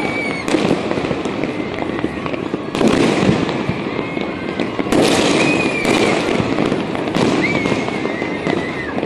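Many fireworks and firecrackers going off across a city at once: a continuous crackle of distant bangs and pops, with louder bursts every second or two. A few high, wavering whistles rise over the crackle.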